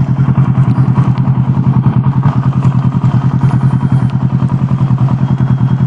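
Kawasaki ER-6n's parallel-twin engine running at a steady pitch under way, with a rapid, even pulsing.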